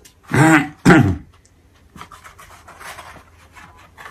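A man makes two short throat sounds, one right after the other. This is followed by faint rustling and scraping of a small cardboard box being pried open.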